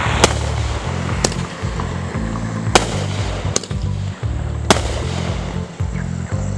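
Starget 'Crazy Cat' fireworks cake firing single shots, about five sharp bangs roughly a second apart as the shells go up and burst into sparkles. Background music with a heavy bass beat plays under it.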